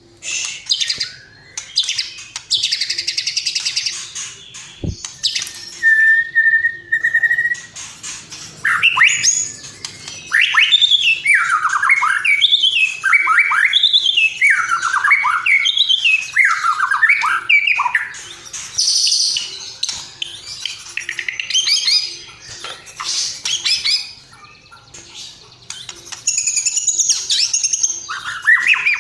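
Recorded songbird calls: busy high chirping and chattering, a held whistled note about six seconds in, then a run of repeated swooping up-and-down whistled phrases through the middle.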